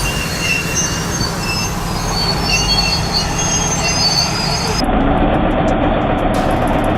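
Bulldozer running heavily, a steady rumble with intermittent high-pitched metallic squeals. About five seconds in, the sound cuts abruptly to a steady engine drone.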